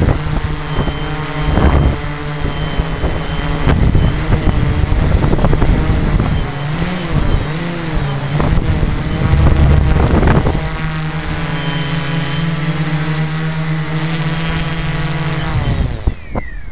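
Quadcopter motors and propellers buzzing steadily while the drone descends, the pitch wavering in the middle as the throttle changes. About a second before the end the buzz cuts off as the drone sets down, followed by a short falling whine as the motors spin down.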